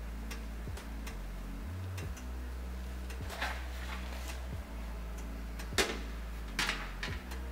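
Metal baking tray set down onto pastry on an oven rack, with a scrape and clank about three and a half seconds in and two more knocks near the end as it is pressed into place. Under it, a steady low hum and repeated light ticking.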